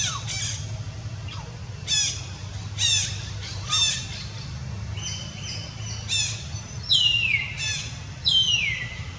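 A string of about nine short, high-pitched animal squeals or squawks, each falling in pitch, with two longer, louder downward-sliding calls near the end; a steady low rumble runs underneath.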